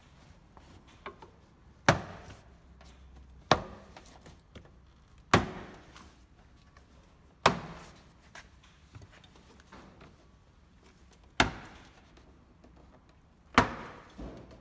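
Plastic retaining clips of a Toyota Land Cruiser 79 Series door trim panel popping out one at a time as the panel is pried away from the door by hand: six sharp snaps, about two seconds apart, each followed by a brief rattle of the panel.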